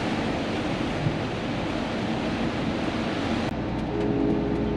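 Heavy rain and road spray rushing against a truck cab on the move. The rush cuts off suddenly about three and a half seconds in as the truck passes under an elevated roadway, leaving the steady hum of the truck's engine with a few faint ticks.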